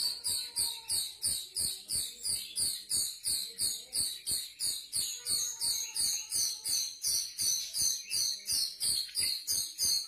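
Looped calls of a grosbeak starling (rio-rio) played as bird-lure audio: a high, sharp chirp repeated evenly about three times a second, with faint musical tones underneath.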